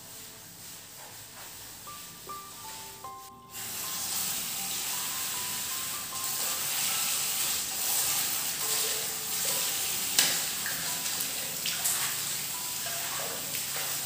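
Tap water running steadily into a ceramic wash basin, starting suddenly about three and a half seconds in, over light mallet-percussion background music. A brief sharp knock sounds about ten seconds in.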